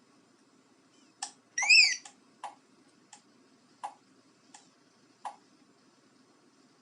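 Car-alarm remote key fob: a button click, then the fob's beeper gives a short warbling chirp that rises and falls in pitch, followed by six sharp button clicks about two-thirds of a second apart.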